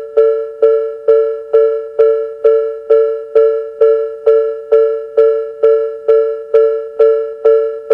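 Japanese railway level-crossing warning bell, the electronic Tobu 'sound B' type, sounding from both sides of the crossing. It rings a struck-bell tone a little over twice a second, each strike fading before the next: the signal that a train is approaching and the barriers are down.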